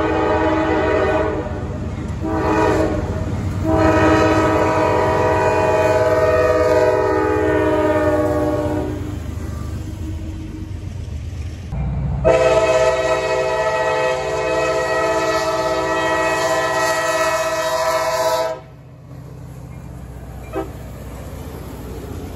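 Diesel locomotive air horn sounding a chord in several blasts: two short ones, then a long one that fades, and another long blast later that cuts off suddenly. The low rumble of a passing train runs underneath.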